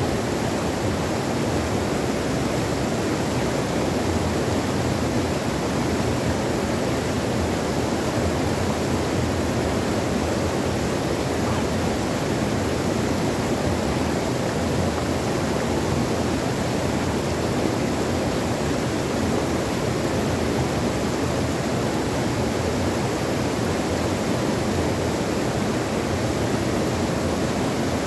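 Stream water rushing steadily over small rocky cascades into a pool, a constant full rushing sound without breaks.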